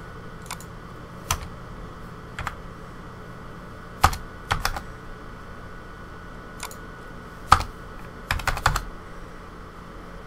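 Computer keyboard keystrokes: scattered single taps, then a quick run of several near the end, over a faint steady hum.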